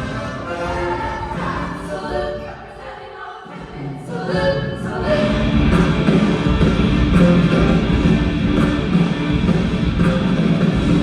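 Recorded music: a choral, sung passage, then about five seconds in a louder full band comes in.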